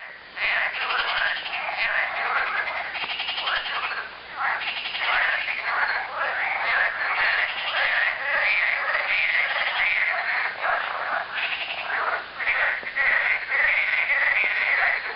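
Chorus of frogs croaking: many overlapping, rapidly pulsed calls going on without a break.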